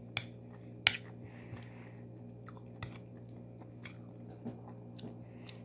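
Close-up mouth sounds of a person chewing a mouthful of rice with cucumber in yogurt: scattered wet clicks and smacks, the sharpest about a second in and just under three seconds in.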